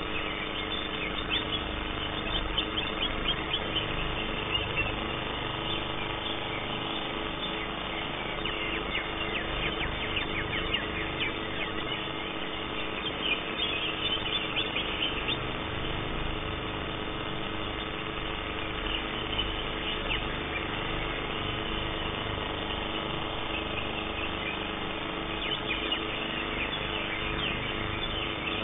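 Green leafbird (cucak ijo) singing in spells of rapid, high chirping notes with short breaks between them, over a steady hum.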